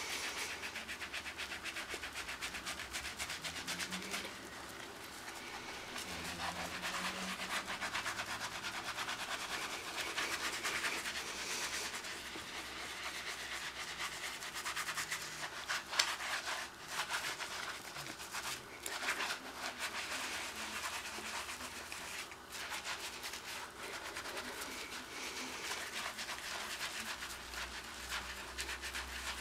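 Skin of the hands being scrubbed hard: a steady run of quick, scratchy back-and-forth strokes, with one sharper knock about halfway through.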